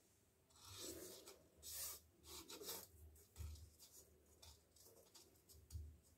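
Faint rubbing and scraping as a besan laddu is rolled round in powdered sugar in a non-stick pan, in short irregular strokes, with a couple of soft low bumps.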